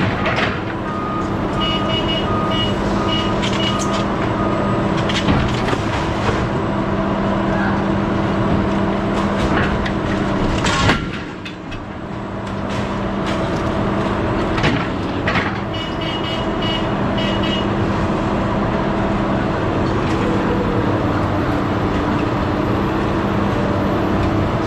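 Engine of a heavy scrap-loading machine running steadily. A backup alarm beeps for a couple of seconds near the start and briefly again about two-thirds of the way in. A few sharp clanks of scrap metal are heard, the loudest about eleven seconds in.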